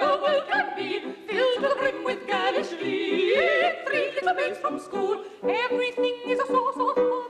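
Operatic singing: several voices sing together with wide vibrato, and a note is held near the end.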